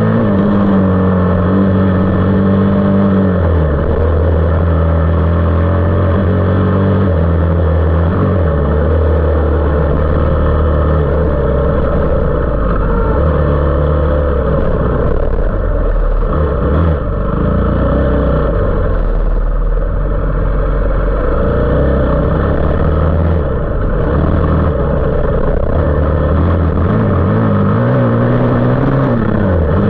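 450cc off-road engine under load while riding, revving up and dropping in pitch at gear changes several times, with a rev rise and drop near the end.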